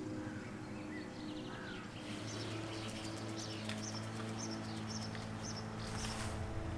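Small songbirds chirping: a run of short, high chirps repeating every half second or so, over a steady low hum.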